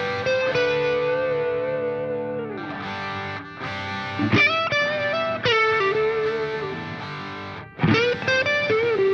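Background music: a distorted electric guitar lead playing long held notes with bends. It slides down about two and a half seconds in and swoops up again near the end.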